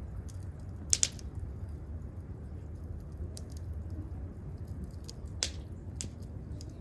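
Wood campfire crackling: scattered sharp pops and faint ticks over a steady low hiss, the loudest a double pop about a second in, with two more pops near the end.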